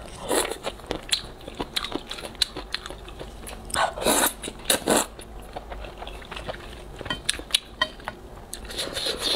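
Close-miked eating of rice noodles in broth: wet chewing and smacking with many sharp little clicks, and two loud noisy slurps of noodles about four and five seconds in.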